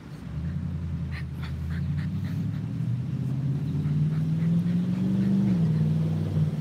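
A heavy road vehicle's engine pulling away and accelerating, its low note rising steadily for about five seconds, then dropping as it shifts gear near the end.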